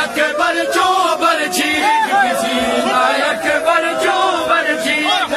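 A crowd of men chanting a noha, a Shia mourning lament, together, with sharp slaps of hands beating on chests in matam about once a second.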